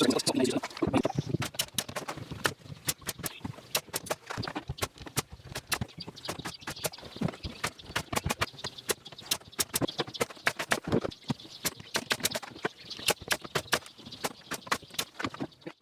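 Quick, irregular series of sharp taps and clicks, several a second, with heavier, deeper knocking in the first second or so.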